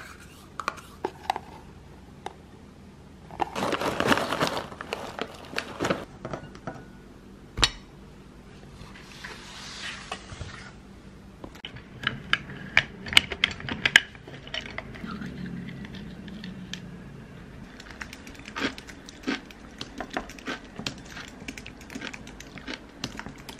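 Tableware being handled while breakfast is put together: a plastic spoon scraping yogurt out of its cup into a ceramic bowl, then scattered clinks and taps of spoon, bowl and a plastic tumbler. Two short rushes of noise come about four and ten seconds in, with a sharp knock in between.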